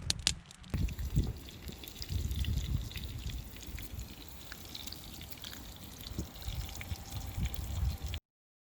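Wind buffeting the microphone in irregular gusts, with scattered light ticks and crackles; the sound cuts off abruptly near the end.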